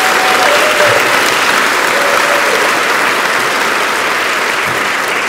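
Audience applauding, a dense, steady clapping with a few voices mixed in among it.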